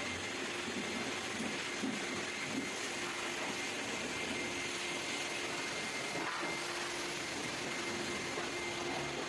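Vacuum cleaner running steadily with an even whooshing hiss and a faint steady hum.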